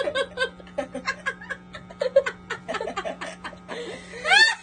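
People laughing and snickering in short bursts, with a shrill, squealing laugh rising and falling near the end. A faint steady hum runs underneath.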